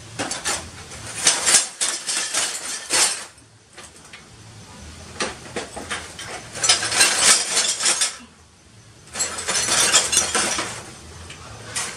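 Broken glass and shards of a smashed TV clinking and rattling against each other as the pieces are shifted and picked through, in three spells of clatter.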